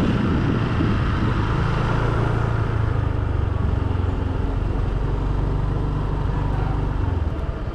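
Honda SH 150 scooter's single-cylinder engine running at a steady cruise, heard from on board with road and wind noise. It eases slightly near the end.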